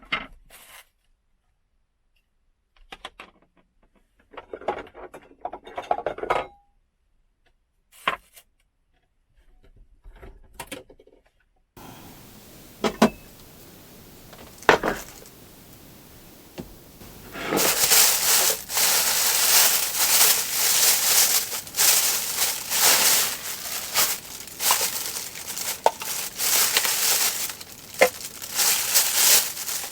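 Scattered light clinks and knocks of cookware and utensils being handled. Then a steady hiss starts, and from about two-thirds of the way in a loud, dense crackling with sharp pops takes over.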